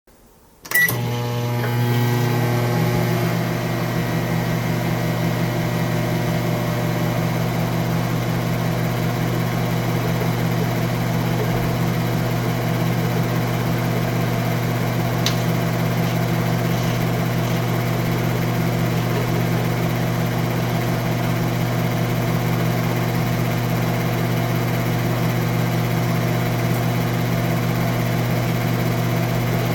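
Microwave oven started: a short button beep about a second in, then the oven's steady electrical hum as it runs.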